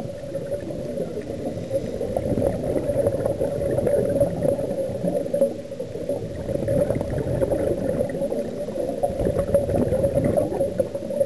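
Scuba divers' regulator breathing and exhaled bubbles, recorded underwater: a continuous muffled gurgling rumble that swells and dips.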